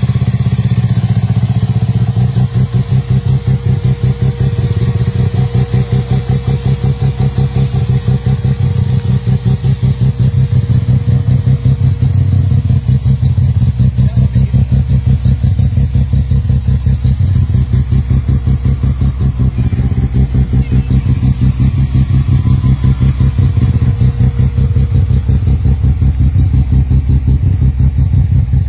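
Mazda RX-3's two-rotor Wankel rotary engine idling, a loud, steady, rapid pulsing from the exhaust.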